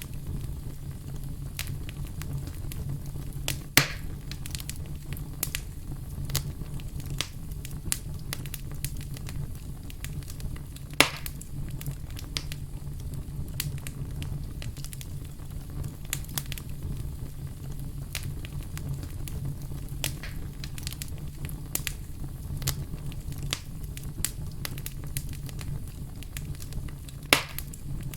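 Fire in a fireplace crackling steadily: many small ticks and snaps over a low, even rumble, with three louder pops spread through the stretch.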